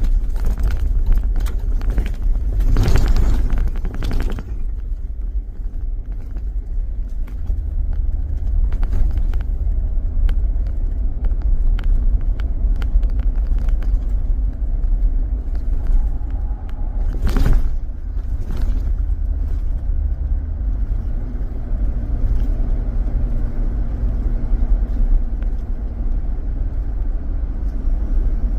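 Car driving on a back road, heard as a steady low road and engine rumble, with two short noisy bursts, one a few seconds in and one a little past halfway.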